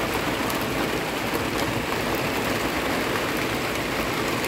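Heavy rain falling steadily, a continuous even hiss with scattered fine drop ticks.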